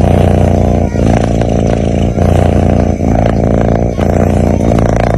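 Sleeping cat's loud, continuous rumbling with each breath, snore-like, breaking briefly about once a second as the breath turns.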